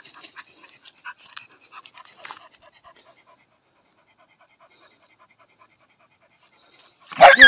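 Young black hunting dog panting in quick, short breaths for the first few seconds, then quiet; a sudden loud cry cuts in near the end.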